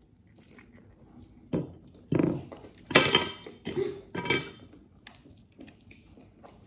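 A handful of short clatters and rustles, about five in quick succession over a few seconds, the loudest about halfway through: food containers and utensils being handled while eating.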